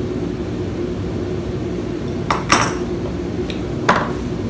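Small metal spray-gun parts clinking as they are handled and set down on a workbench: three short sharp clinks, the loudest about two and a half seconds in, over a steady machine hum.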